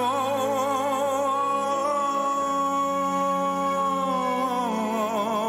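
A male singer holds one long sung note over a ballad's backing music, steady at first and breaking into a wide vibrato near the end.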